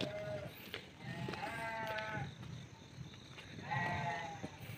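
Livestock bleating: three drawn-out bleats, one right at the start, one about a second in and one near the end.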